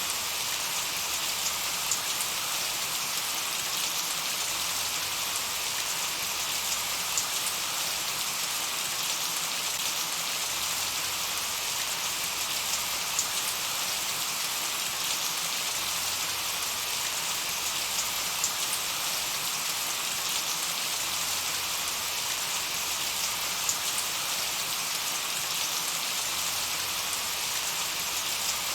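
Steady light rain falling on a meadow, a continuous soft patter with scattered individual drop ticks.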